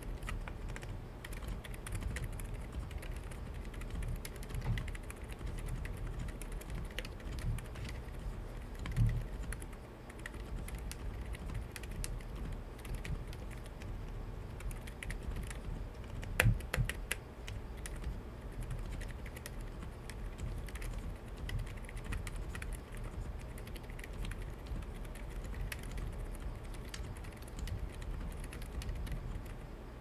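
Continuous typing on a CIY Tester68 mechanical keyboard fitted with 'Ender' silent frankenswitches (Holy Panda clone housings with Zifriend Panda stems). The keystrokes come in a steady, dense stream and sound mostly low in pitch. A couple of louder clacks stand out about 9 and 16 seconds in.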